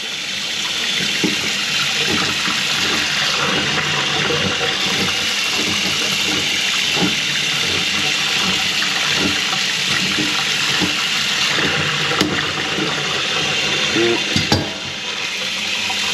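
Kitchen faucet running steadily into the sink to test a drain line that was clogged with grease, with the water now draining better though not fully clear.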